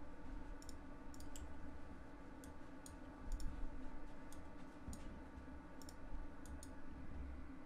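Irregular light clicks of a computer mouse and keyboard as a 3D model is edited, over a steady electrical hum.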